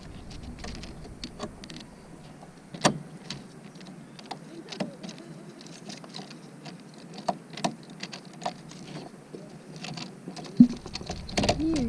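Scattered small clicks and taps of a screwdriver and fingers working wires into a plastic terminal block on the back of an RV refrigerator, with one sharper click about three seconds in.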